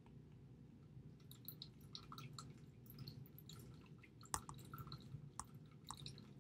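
Faint taps and scratches of a stylus writing on a tablet screen, irregular small clicks starting about a second in, over a low steady room hum.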